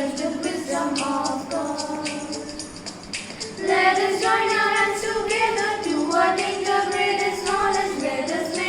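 Singing with musical accompaniment: long held sung notes over a steady percussive beat of jingly ticks.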